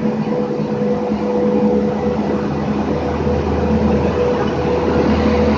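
WAP-5 electric locomotive and its coaches rolling slowly alongside a station platform: a steady electric hum over the rumble of wheels on rail, growing a little louder as the locomotive passes.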